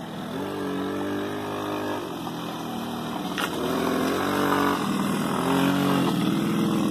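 1986 Suzuki LT50 ATV's small two-stroke engine running as it is ridden, its pitch rising and dipping over and over with the throttle, and growing louder about halfway through as the quad comes close.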